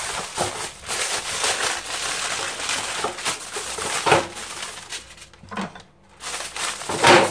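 Aluminium foil crinkling and crackling as a sheet is pulled off the roll and handled, with a short pause about five seconds in and a loud crinkle near the end.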